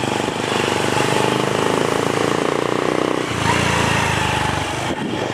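Motorcycle engine running while riding, with a fast, even pulse. A little after three seconds in its sound changes to a lower, smoother rumble.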